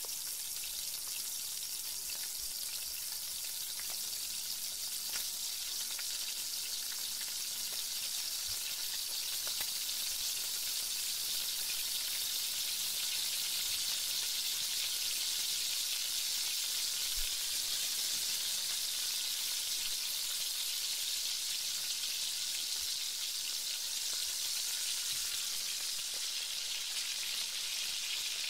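Chopped onions sizzling steadily in hot oil in a frying pan.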